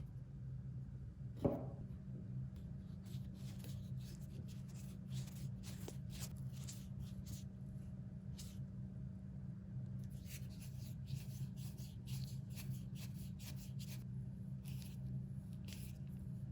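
A knock with a short ringing tone falling in pitch about a second and a half in, then a run of short, irregular rubbing and scraping strokes by hand, over a steady low hum.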